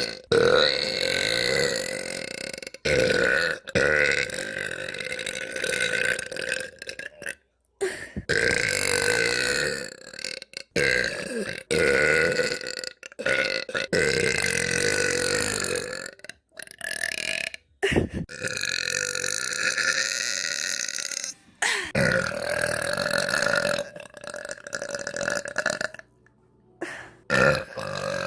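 A girl's long, drawn-out burps, one after another, many lasting several seconds, with abrupt cuts between them.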